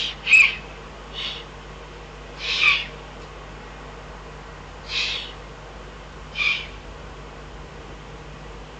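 Young Eurasian eagle-owl giving short, hoarse, hissing begging calls: about six in all, at irregular gaps of one to two and a half seconds, the loudest near the start.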